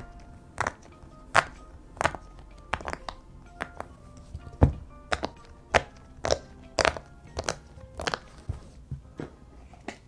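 Square silicone pop-it fidget toy, its bubbles pushed through one after another by fingertips: a string of sharp little pops, about two a second, unevenly spaced.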